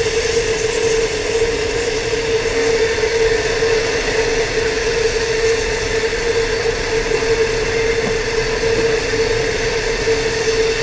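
Loaded heavy-haul freight train's hopper wagons rolling past on steel rails: a steady, loud rolling noise with a constant mid-pitched whine.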